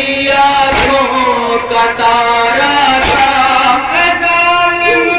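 Male voices chanting a Shia noha (Muharram lament) in long held, gliding notes. Twice, about two seconds apart, a sharp strike cuts across the chant, the crowd beating their chests together in matam.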